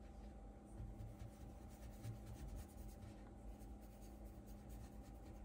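Faint scratchy rubbing of a small paintbrush mixing acrylic paint on the paper sheet of a wet palette, over a low steady hum.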